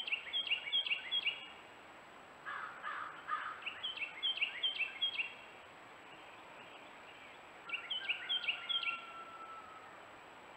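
Outdoor birdsong: a songbird sings three bouts of quick, repeated down-slurred whistled notes. Between the first two bouts a crow caws three times. A faint steady high whine from the trail camera runs underneath.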